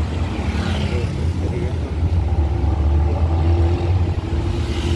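Engine of a moving vehicle running steadily, heard from a passenger seat in an open-sided vehicle, with street traffic passing; a low drone, joined by a faint steady whine about halfway through.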